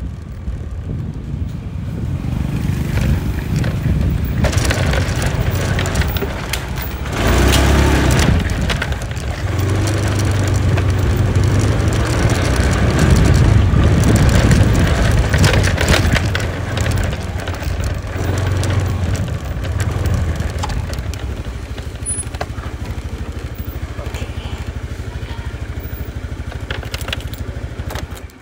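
Motor scooter ridden along the road: engine running with wind rushing over the phone microphone, louder about 7 seconds in and again a little past the middle. The noise falls away sharply at the very end.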